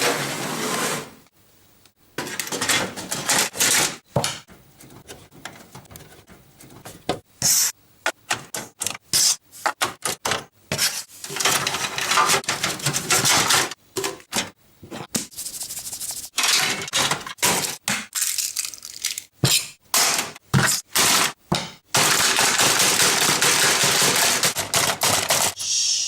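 Objects being broken and crushed: irregular runs of sharp cracks, crunches and smashes with short pauses between them. Near the end comes a longer stretch of continuous crunching.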